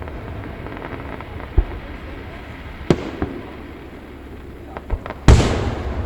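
Fireworks shells bursting: a series of sharp bangs, the loudest boom about five seconds in, with a rumbling echo trailing after it.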